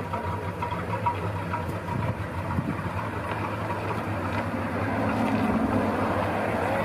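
Engine of a vintage DeSoto sedan running at low speed as the car rolls slowly up, growing a little louder near the end.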